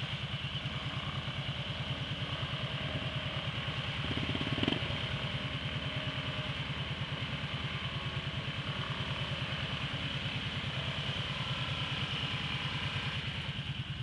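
ATV engine idling close by with a steady, even low chug, briefly swelling about four to five seconds in.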